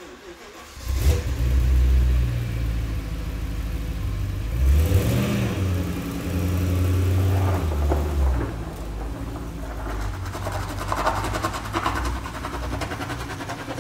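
A BMW car engine starting about a second in and running, with a brief rise and fall of revs near the middle as the car is moved out.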